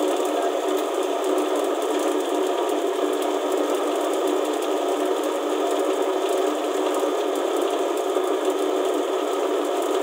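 Diesel transfer pump and East-Man mechanical litre meter running steadily as diesel is dispensed, the meter counting up the litres.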